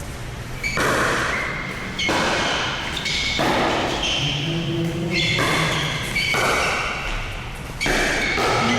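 Pickleball rally: paddles striking the hard plastic ball about six times, sharp pops roughly a second or so apart, each followed by a long echo.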